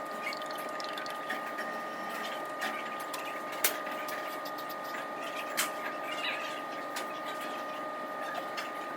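New 5W-30 motor oil being poured from a jug into the engine's oil filler, a steady pouring sound, with a couple of short knocks.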